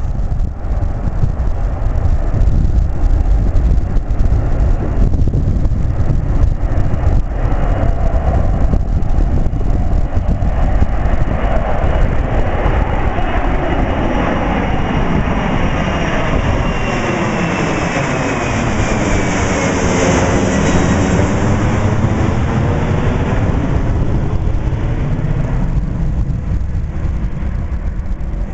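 Boeing 767-300F's twin jet engines at takeoff power, a loud steady rumble as the freighter climbs out directly overhead. About halfway through, a high whine slides down in pitch and the rumble takes on a sweeping, phasing sound as the jet passes overhead, then it eases off as the jet moves away.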